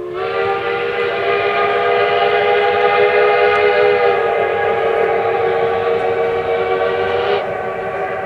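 Locomotive air horn sounding one long, loud, multi-note chord, which shifts slightly about four seconds in and thins near the end.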